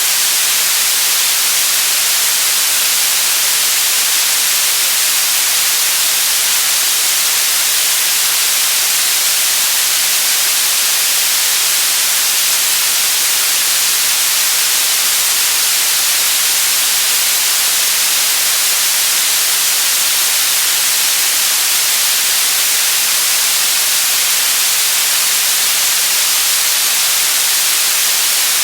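Steady static hiss, loud and unchanging, brightest in the high range, like an untuned radio or TV.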